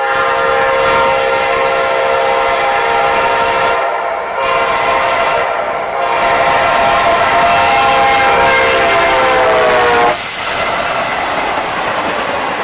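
CSX freight locomotive's multi-chime air horn blowing for a grade crossing as the train approaches: a long blast, a shorter one, then a long one. The chord drops in pitch as the locomotive goes by and the horn cuts off. The train's engines and wheels then run past on the rails.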